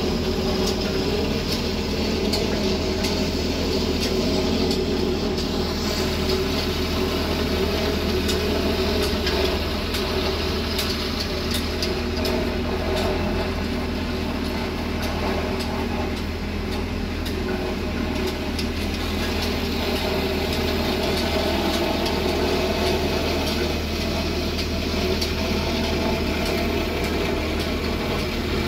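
Engine of a 5–6 ton tandem road roller running steadily as it compacts an aggregate base, a continuous drone with a strong low hum.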